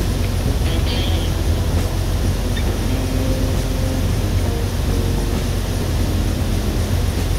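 Heavy harvest machinery running: a steady, low diesel-engine drone with no change in pace.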